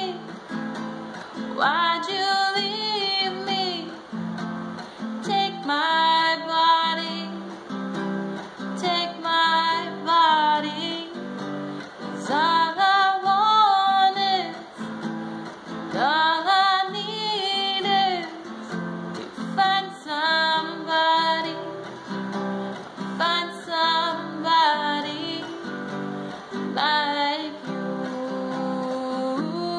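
A woman singing a slow song to her own strummed acoustic guitar, her sung phrases coming in lines of a second or two over the steady chords.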